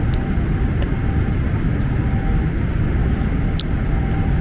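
Steady low roar of a jet airliner cabin in flight: engine and airflow noise, with a faint steady hum over it. A few light clicks sound, the clearest about three and a half seconds in.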